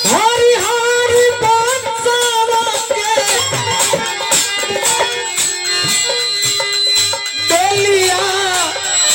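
Nirgun folk song: a singer holds long, bending notes over instrumental accompaniment and a steady percussion beat.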